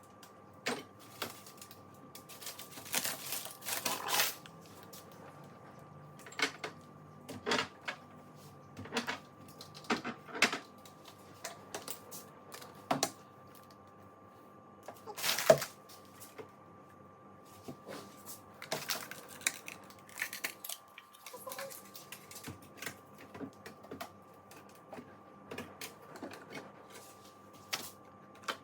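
Irregular knocks, clicks and light clatter of jars, containers and packets being handled and set down while clearing out a fridge, with one louder knock about halfway through, over a faint steady hum.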